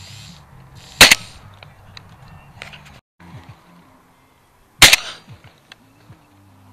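Two shotgun shots fired at pigeons in flight, about four seconds apart, each a sharp crack with a short tail.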